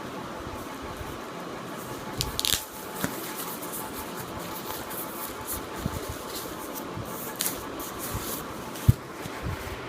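Boxed items and packaging being handled: scattered rustles and knocks, the sharpest knock near the end, over a steady background hum.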